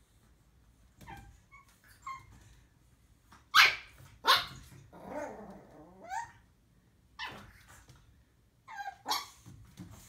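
Pug puppy barking at her own reflection in a mirror: a string of short, high-pitched yips and barks, the two loudest close together a few seconds in, with a short growl after them.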